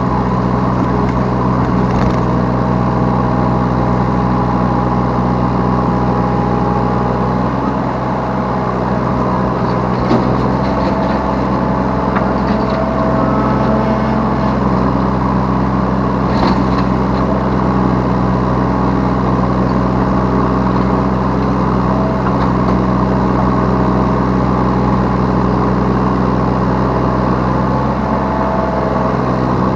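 Yanmar B3 Sigma 3-ton mini excavator's diesel engine running steadily under work, heard from the operator's seat, with a few short knocks from the machine along the way.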